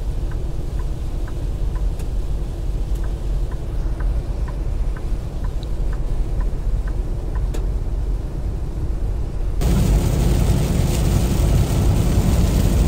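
Steady rumble of a Kenworth T680 semi truck's engine and tyres on a wet highway, heard from inside the cab, with faint ticking about twice a second. About nine and a half seconds in it turns louder and hissier, with heavy rain and road spray.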